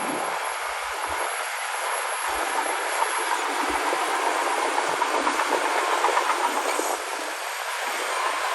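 Crawler bulldozer working: a steady, noisy mechanical rush with fast, continuous clattering, typical of steel tracks running on their rollers.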